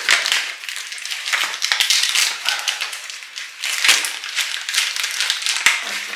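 Paper and thin plastic crinkling and rustling as a folded instruction leaflet and a clear plastic packet are handled and unfolded, in a dense run of small crackles.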